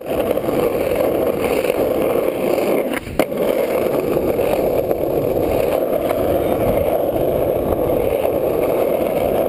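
Skateboard wheels rolling steadily over a hard skatepark surface, with one sharp clack about three seconds in.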